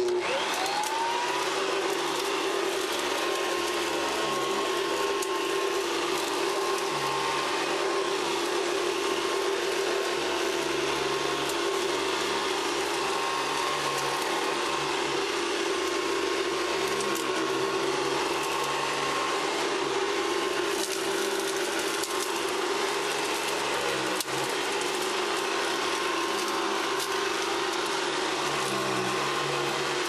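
Hoover Decade 80 upright vacuum cleaner switched on, its motor whining up to speed in about a second and a half. It then runs steadily with a constant hum while it is pushed over a rug.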